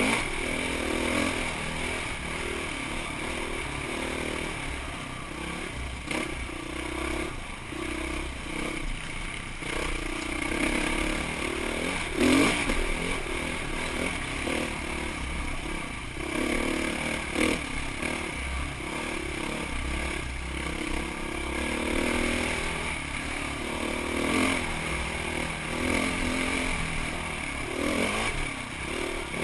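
Dirt bike engine running hard on the trail, its note rising and falling with the throttle, over the clatter and knocks of the bike bouncing across rough ground, with a sharp jolt about twelve seconds in.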